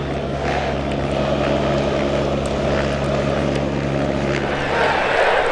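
A steady mechanical drone: a low hum of several steady tones over an even rushing noise. It stops near the end.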